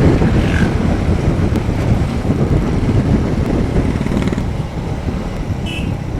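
Royal Enfield Bullet single-cylinder motorcycle engine running on the road, with wind rushing over the microphone. The rumble slowly dies down toward the end.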